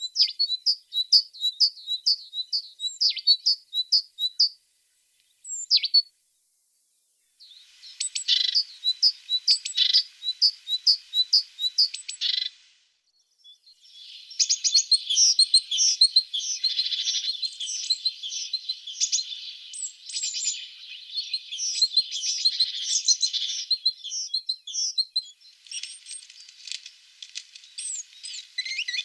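Tit singing: runs of short, high repeated notes broken by silent gaps of a second or two. From about halfway through, the chirping becomes dense and continuous.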